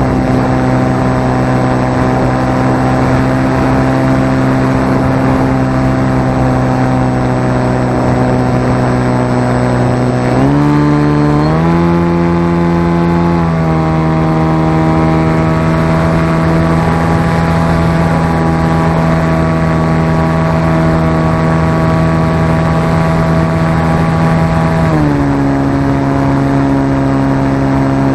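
Onboard sound of a radio-controlled flying wing's motor and propeller running at a steady pitch over wind rush. The pitch steps up about ten seconds in as the throttle is opened, holds high, then drops back near the end.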